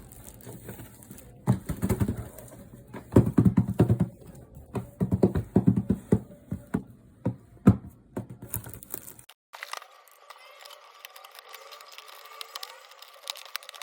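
Irregular clicks, knocks and rattles of small hard objects being handled, in dense clusters for about the first nine seconds. Then the sound changes abruptly to faint, thin clicking and rattling.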